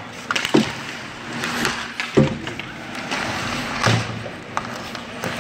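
Youth ice hockey play right at the rink boards: skates scraping the ice and three heavy thuds against the boards, about half a second, two seconds and four seconds in, the middle one the loudest.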